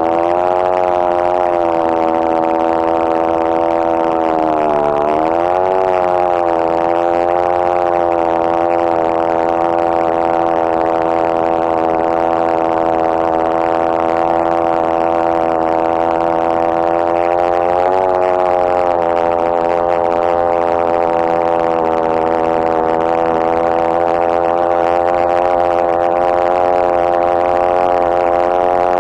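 Two-stroke chainsaw in a chainsaw mill running at full throttle as it rips a plank lengthwise through a red cedar log. The high, steady engine note dips briefly about five seconds in and recovers, and wavers slightly again past the middle.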